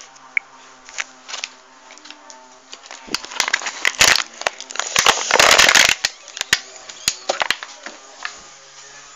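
Handling noise on a phone's microphone as it is carried and moved: scattered clicks, knocks and rubbing, with two louder scuffing rustles about four seconds in and again around five and a half to six seconds.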